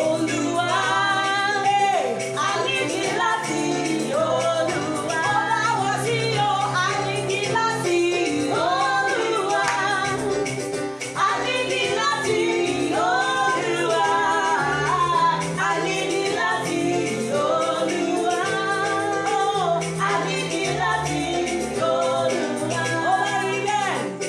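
A gospel song: a singing voice carrying a melody over instrumental band accompaniment with a steady bass.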